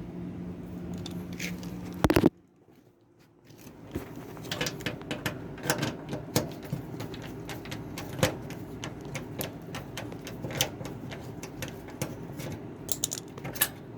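Irregular light clicks and metallic clatter of hand tools and fasteners being worked on a washing machine's sheet-metal cabinet while a part is unbolted. A steady low hum ends with one loud knock about two seconds in, and a second of near silence follows.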